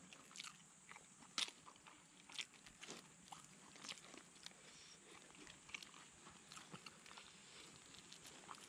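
Faint, irregular crackles and small clicks of the charred, papery skin of grilled fish being torn and peeled off by hand, with a couple of sharper cracks about one and a half and two and a half seconds in.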